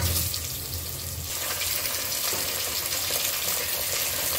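Onions and raw meat sizzling in hot oil in an aluminium pressure cooker as the meat is added; the sizzle grows louder and fuller about a second in.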